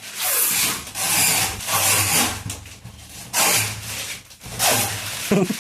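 Protective wrapping being peeled and torn off a new aluminium door: about six rasping strokes, each around half a second long.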